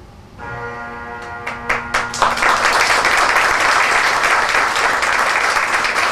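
The band's accompaniment holds a closing chord that ends about two seconds in, as a theatre audience breaks into applause: a few claps first, then steady applause for the rest.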